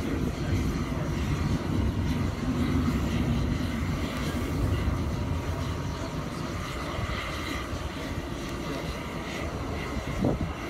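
Distant F/A-18 Hornet jet engines, a low steady rumble as the jet approaches the carrier.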